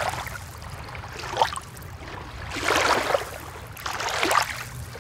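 Water sound effect of waves washing, swelling and ebbing four times, about every one and a half seconds, over a steady low rumble.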